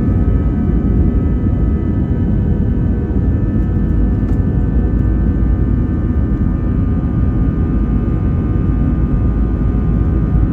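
Airbus A321-200's jet engines running at takeoff power, heard from inside the economy cabin: a loud, steady rumble with a layer of steady engine tones over it.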